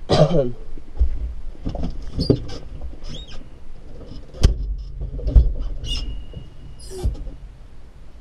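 Tractor and hay trailer on the move, rattling and knocking over a low rumble with creaking squeaks. A falling squeak comes at the start, a heavy knock about four and a half seconds in, and a short high squeal about six seconds in.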